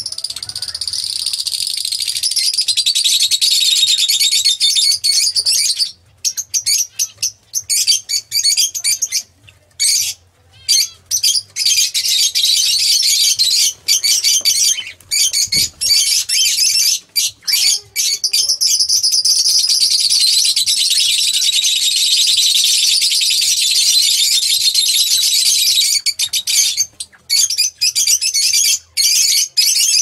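Lovebird chattering in a rapid, high-pitched stream of squeaky twitters. The chatter runs in long unbroken stretches and breaks into short choppy bursts with brief pauses for a stretch in the middle.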